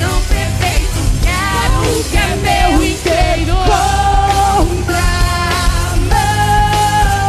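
Live rock band playing, with a woman singing over bass and drums and holding two long notes, the second one sustained to the end.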